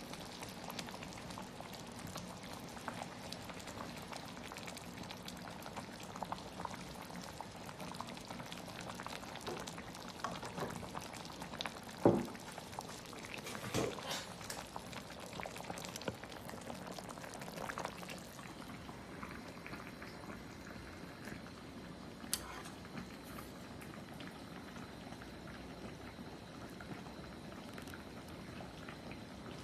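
Pickled-vegetable fish broth simmering in a clay hotpot: a steady bubbling with many small pops. Two louder knocks come near the middle, and a sharp click later on.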